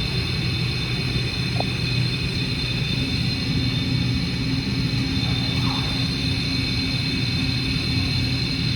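Hurco CNC milling machine running steadily: a low hum with a steady high whine above it.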